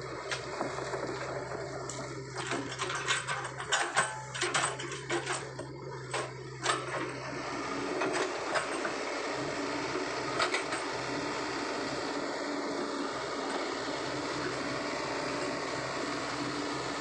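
Sany mini excavator's diesel engine running with a steady hum, with a cluster of sharp cracks and clanks from about two to seven seconds in as the machine pushes through brush. From about eight seconds in it grows louder and steadier as the excavator tracks forward through the flooded ground.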